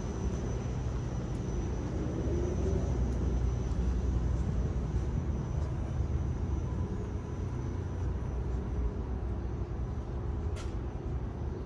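Steady low rumble of outdoor vehicle noise, with a brief sharp tick about ten and a half seconds in.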